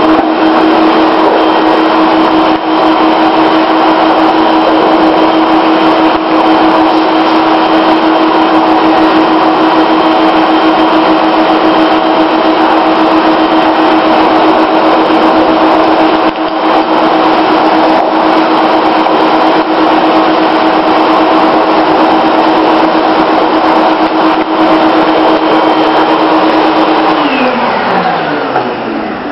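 Vacuum motor driving air through the tunnel, running loud and steady with a high whine over the rush of air. About 27 s in it is switched off and its pitch falls as it spins down.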